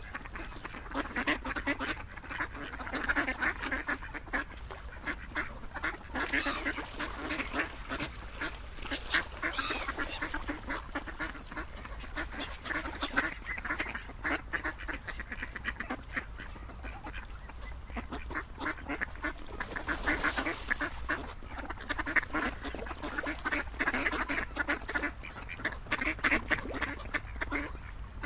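A flock of ducks quacking without a break, many calls overlapping.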